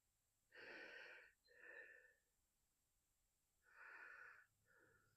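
Four faint, short breathy sounds from a person.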